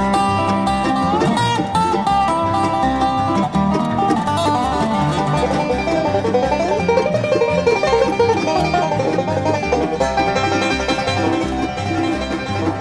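Bluegrass band instrumental break: banjo, guitar and bass playing, with sliding notes near the start and about a second in.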